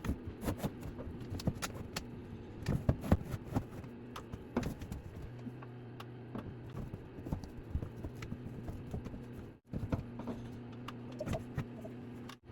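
Irregular knocks, taps and clatter of handling or footsteps, over a steady low hum.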